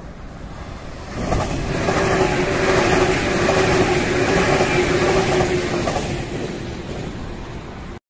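JR West WEST EXPRESS Ginga, a converted 117-series electric train, passing close by on the rails. Its wheel rumble rises sharply about a second in, is loudest through the middle with a steady hum, and fades toward the end as the last car goes by.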